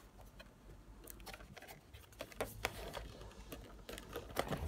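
Fingers picking and scratching at the flap of a cardboard box, a scatter of small clicks and scrapes that grows busier in the second half.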